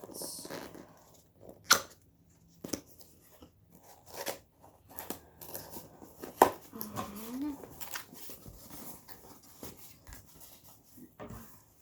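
Cardboard box being handled and pried at: scattered sharp clicks and taps with some tearing, the loudest snap about six and a half seconds in. A brief low rising sound comes about seven seconds in.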